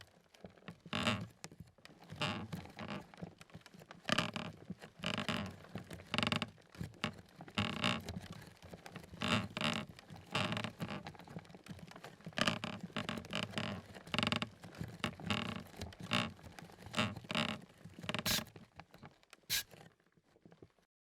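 Barefoot footsteps on a creaky floor, steps falling roughly once a second, with the floorboards creaking under them. The steps thin out near the end.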